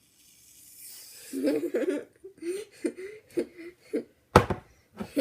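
People laughing in a series of short bursts, with a single sharp knock about four seconds in.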